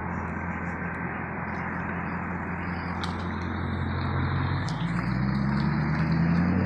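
Volvo S80's 4.4-litre V8 idling steadily, then revving up with a slow rise in pitch and loudness from about five seconds in.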